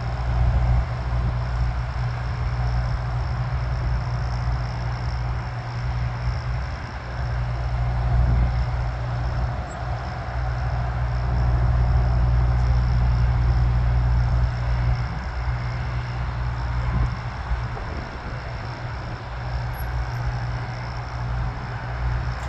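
Business jet taxiing at a distance: a steady engine hiss and a thin high whine over a deep, uneven rumble.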